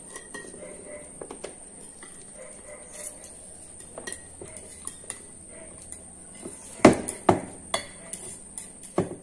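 Chopsticks clicking and scraping against plates and bowls during a meal, with a few louder, sharp clacks of dishware about seven seconds in and again near the end. A faint steady high-pitched whine runs underneath.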